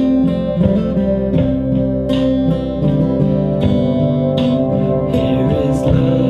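Acoustic guitar strumming the chords of a hymn's instrumental opening.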